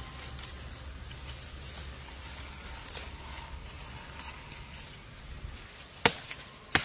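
Faint rustling in grass, then two sharp chops of a large knife about two-thirds of a second apart near the end, cutting a gourd from its vine.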